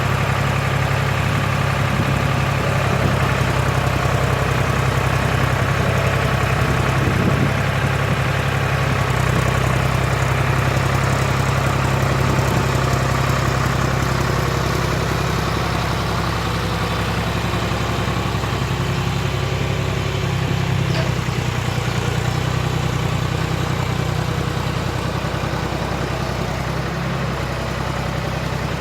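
The John Deere 300B backhoe's engine runs steadily at a low, even idle-like speed, easing a little quieter in the second half.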